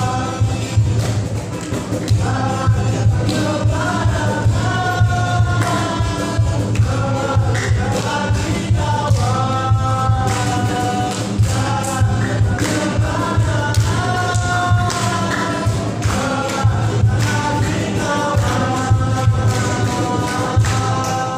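Music: a group of voices singing a melody over a steady low tone, with frequent percussion hits.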